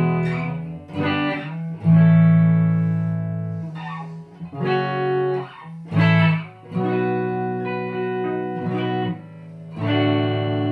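Cheap Fender-copy electric guitar played through its stock bridge pickup: a series of strummed chords, each left to ring out before the next.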